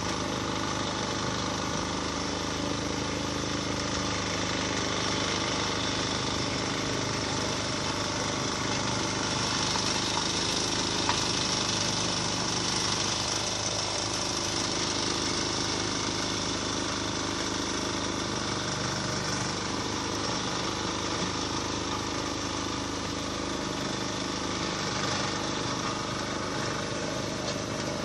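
Road-repair machinery running steadily: continuous engine noise with a dense mechanical clatter.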